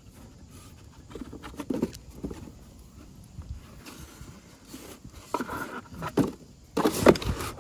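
A dog nosing and rummaging through folded cardboard boxes: irregular rustling, scraping and knocking of cardboard mixed with quick sniffing, with the loudest rustle about seven seconds in.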